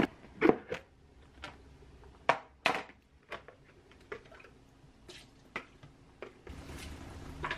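Scattered light clicks and knocks of a plastic salad spinner being taken apart and handled, its lid set down on the counter. A steady low hum comes in about six and a half seconds in.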